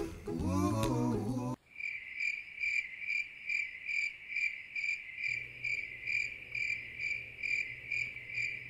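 Background music cuts off about a second and a half in, and a cricket chirps in its place in even pulses, about two and a half a second.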